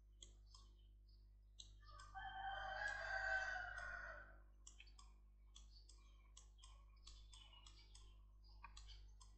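A single long animal call starting about two seconds in and lasting some two and a half seconds, over faint, scattered computer mouse clicks.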